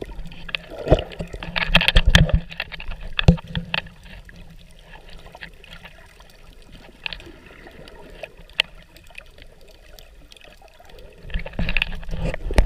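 Water heard underwater by the submerged camera: a muffled low sloshing with many scattered sharp clicks, and louder surges of sloshing about two seconds in and again near the end.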